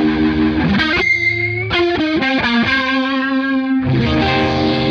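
Two overdriven electric guitars played through a Hughes & Kettner Tube Rotosphere rotary-speaker pedal, driven by a Barber Gain Changer overdrive. They play sustained chords with a wavering rotary swirl, and a fuller new chord comes in near the end.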